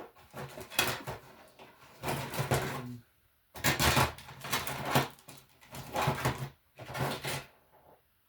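Rummaging through a drawer: hard objects clattering and rattling in several bursts of a second or so each.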